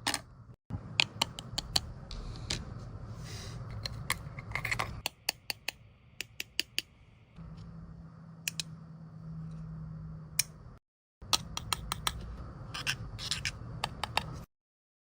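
Small sharp clicks, taps and scrapes of tools and fingers working on an opened smartphone, over a low steady hum, cut off abruptly a few times.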